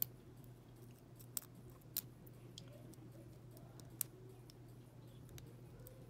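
Lock pick and tension wrench working the pin stack of a brass pin-tumbler padlock: sparse, sharp little clicks of the pick on the pins, the clearest about a second and a half, two and four seconds in, over a faint steady hum.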